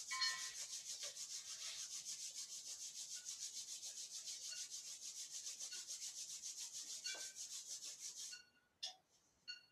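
Bare palms rubbed vigorously together in fast, even strokes, about seven a second, stopping about eight seconds in: the hands being rubbed to warm them.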